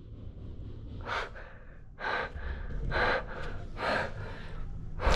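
A man breathing hard and gasping in fright, a sharp breath about once a second.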